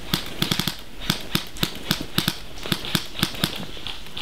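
Airsoft rifle firing single shots in quick, uneven succession, about sixteen sharp cracks in four seconds.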